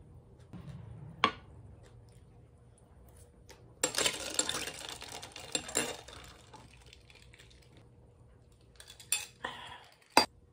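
Ice cubes clinking and rattling in a glass for about two seconds as an iced drink is stirred with a long spoon. A few single sharp taps of utensils on dishes come about a second in and near the end.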